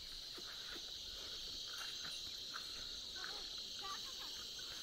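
Steady high-pitched chorus of insects in the fields, with faint short calls scattered through it.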